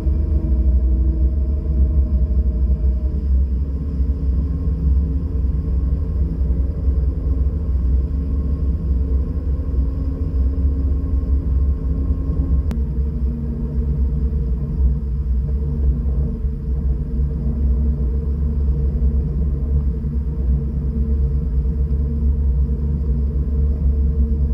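Chris-Craft Speedster runabout's inboard engine running steadily under way: a low, even drone with a steady engine note that shifts slightly about three and a half seconds in and again near thirteen seconds.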